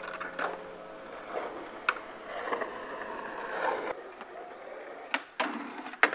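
Skateboard on concrete: wheels rolling with a rough grinding noise, and several sharp wooden clacks of the board, the loudest near the end as it hits a concrete ledge.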